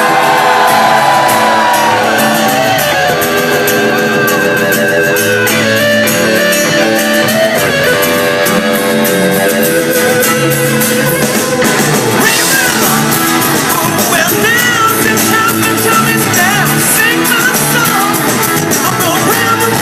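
Live rock band playing with electric guitar and wordless vocals and shouts, heard in a large hall.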